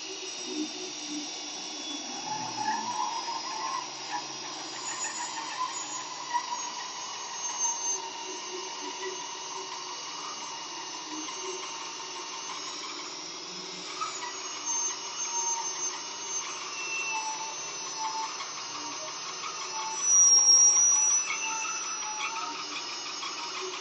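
Magnetic drill running with a countersink bit cutting into a steel truck frame rail under cutting oil: a steady motor whine with cutting noise. It gets louder for a moment near the end.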